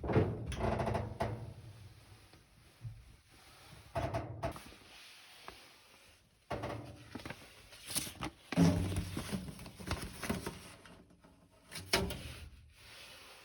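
Irregular knocks, clunks and rustling of objects being handled and set down, in several short clusters with quieter gaps between.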